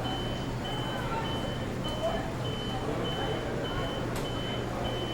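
Restaurant kitchen ambience: a steady low hum of kitchen equipment, indistinct voices and occasional sharp clatter, under a high electronic beep repeating about one and a half times a second.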